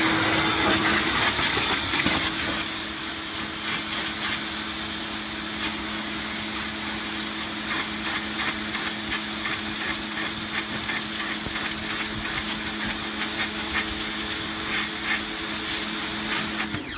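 HGTV Home 1750 PSI pressure washer running, its pump motor humming steadily under the loud hiss of the water jet spraying a painted surface. It cuts off suddenly near the end.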